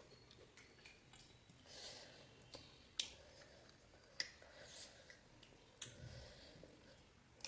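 Near silence broken by a handful of faint, sharp clicks, the two sharpest about three and four seconds in.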